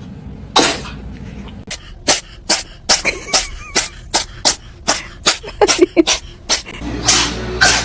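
A cat sneezing: one sneeze, then a rapid fit of about a dozen short, sharp sneezes at roughly three a second. Near the end a different run of short sounds, with a clear pitch to them, begins.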